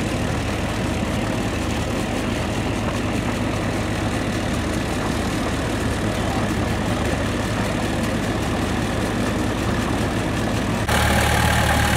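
Diesel engine of a small crawler bulldozer running steadily at high throttle as it churns through waterlogged peat mud. Near the end the engine sound suddenly becomes louder and steadier.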